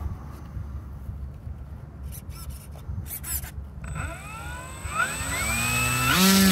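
Low wind rumble on the microphone with a few clicks, then the FMS Pitts RC biplane's electric motor and propeller spin up about four seconds in: a thin high whine and a rising pitch that steps up louder near the end.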